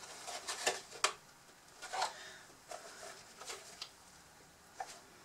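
Hard plastic body of a toy bulldozer model being handled and pried at: a scattering of short, sharp plastic clicks and knocks, about eight in all.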